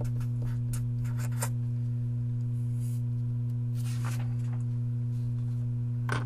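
Steady low electrical hum, with a few short scratches of a marker writing on paper in the first second or so, then soft paper rustling near the middle as a sheet is slid into place.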